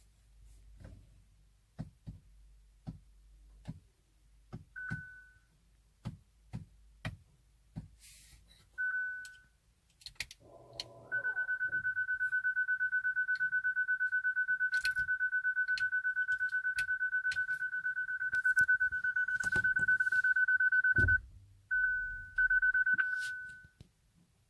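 Hyundai Ioniq Electric's dashboard warning chime: a couple of short high beeps, then a loud, fast-pulsing high beep for about ten seconds and a few more beeps near the end. Scattered clicks run throughout. The chime sounds while the car refuses to start with a brake warning and the key not detected.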